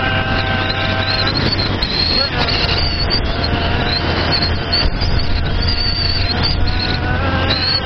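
Honda CG 125 Fan's single-cylinder four-stroke engine running at road speed through an aftermarket Guela exhaust with its baffle removed, with wind rushing past. The engine note changes about a second in, then holds steady.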